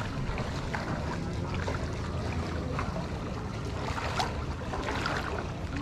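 Wading through shallow floodwater: water sloshing and splashing around the legs, with a step about once a second, over a steady low rumble.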